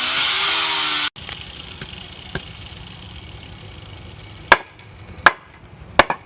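A power tool's steady noise cuts off abruptly about a second in. It is followed by one light knock and then three sharp blows, about three quarters of a second apart, like a hammer striking wood.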